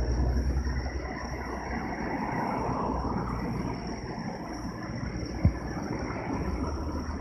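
Low rumble of fireworks bursts rolling and echoing, heaviest at first and then easing, with one short sharp thump about five and a half seconds in. A steady high chirring of insects runs underneath.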